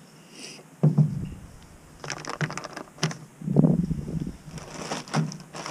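A camp stove set down on a tailgate with a knock about a second in, then the crinkling and rustling of a foil meal pouch being handled, with another heavier knock partway through.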